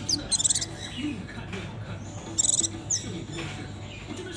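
White-eye (mata puteh) giving short, very high chirps in quick pulsed runs, once near the start and again twice about halfway through, over a low steady hum.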